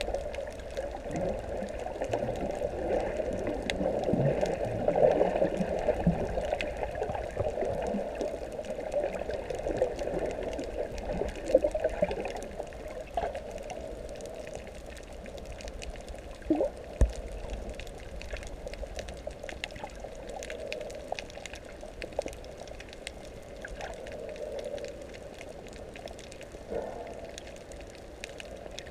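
Underwater sound picked up by a camera's microphone: water gurgling and bubbling, busier in the first half and calmer later, with scattered faint crackling clicks and one sharper knock about two-thirds of the way through.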